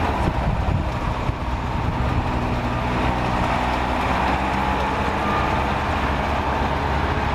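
A vehicle's engine running steadily with tyre and gravel-road rumble, heard from inside the cabin.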